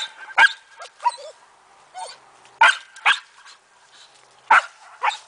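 Samoyed barking: six sharp barks in three quick pairs, aimed up at a cat it has chased into a tree.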